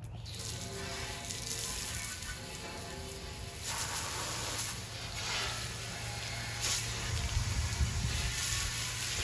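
Hose spray of water hissing and splashing on a carbon steel plow disc wok, rinsing off baking soda paste, with louder swells as the spray sweeps across the metal about 3.7 and 6.7 seconds in.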